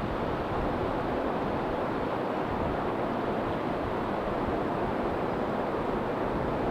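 Steady roar of a four-engine Airbus A340 airliner's jet engines on its landing approach, mixed with wind.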